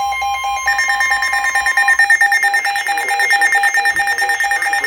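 Emergency alert tones from a weather warning broadcast. A steady tone stops about two seconds in. Under it run rapid pulsing electronic beeps, and a second, higher beeping tone joins just under a second in.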